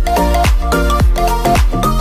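Upbeat instrumental dance backing music: a steady kick drum about twice a second under short, bouncing melodic notes.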